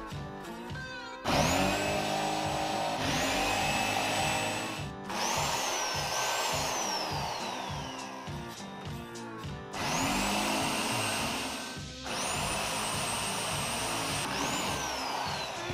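Corded electric drill running in several bursts, each spinning up to a high whine and winding down with a falling pitch, as a twist bit drills holes through perforated steel sheet. Background music plays underneath.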